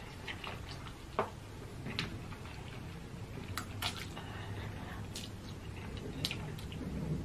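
Close-up wet mouth sounds of a person slurping and chewing noodles, with scattered sharp smacks and clicks.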